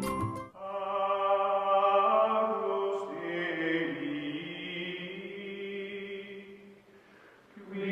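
Outro music of chant-like choir voices holding long sustained notes, shifting chord a couple of times, fading out about seven seconds in and coming back just before the end.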